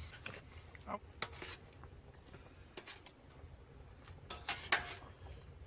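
Light, scattered clinks and knocks of utensils against dishes, with a few louder clatters about four and a half seconds in.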